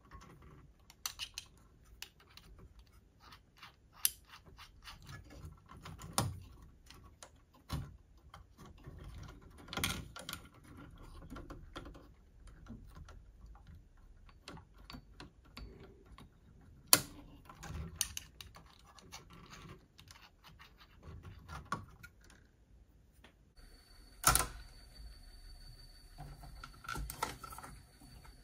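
Irregular clicks, taps and knocks of small parts and hand tools being handled on a cassette deck during repair. A steady high whine with faint hiss comes in near the end.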